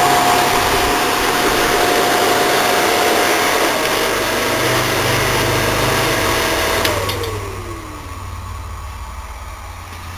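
Speedie 5000 BTU window air conditioner running, with fan and airflow noise over a steady tone and a low compressor hum. About seven seconds in the fan cuts out: the airflow noise drops away and the fan motor's tone falls as it winds down, leaving the low hum.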